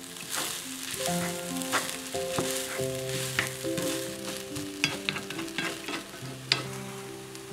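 Egg fried rice sizzling in a hot wok as it is stir-fried with a wooden spatula, with scattered clicks and scrapes of the spatula against the pan. Soft background music with held notes plays along.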